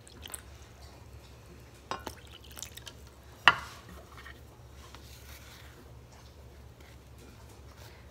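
Water poured from a glass measuring cup into dry masa harina in a glass mixing bowl, then a few light clinks and one sharp knock about three and a half seconds in as the glass cup is set down on the wooden cutting board. A spatula scrapes faintly in the dry masa near the end.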